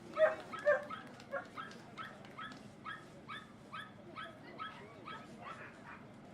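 A dog giving short, high yips over and over, about two to three a second, with the two loudest near the start.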